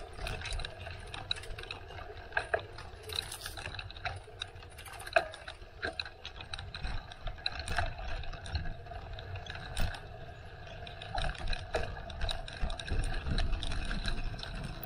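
A bicycle being ridden: irregular clicks, ticks and rattles from the bike's mechanism over a steady low rumble.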